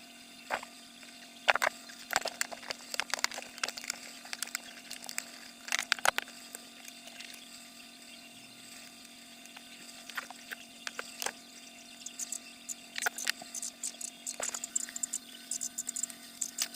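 Irregular clicks, taps and light knocks of hand tools and hard parts being handled, over a steady low hum.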